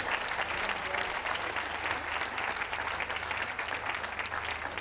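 Audience applauding, many hands clapping in a dense, steady patter that eases slightly near the end.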